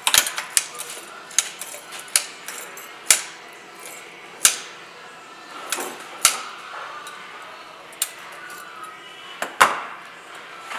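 Sharp, irregular metallic clicks and clacks of safety wire pliers locking onto and twisting safety wire on an aircraft oil filter, about a dozen in ten seconds. The loudest clack comes near the end, as the pliers are set down.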